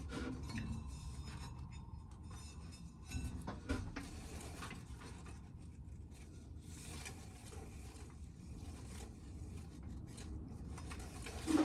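Dry field corn being shelled: faint rasping and rubbing of kernels against the cob, with a couple of light knocks about three seconds in.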